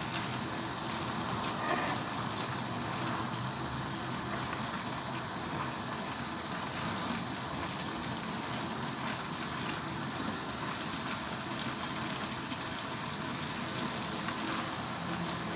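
Vegetable broth in a wok simmering with a steady bubbling hiss, just thickened with tapioca starch, while a spatula stirs the vegetables now and then.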